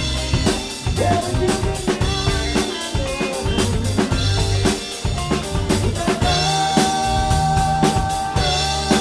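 Rock band playing live, heard from right at the drum kit: a Mapex Mars Birch kit with Zildjian cymbals keeps a steady beat over electric guitars and bass guitar. A long held note comes in near the end.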